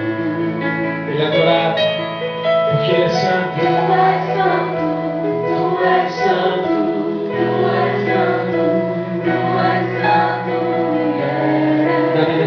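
Worship music: a band playing a slow song with long held bass notes that change every few seconds, with female singing over it.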